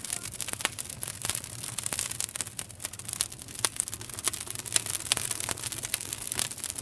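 Campfire crackling, with frequent irregular sharp pops over a steady hiss.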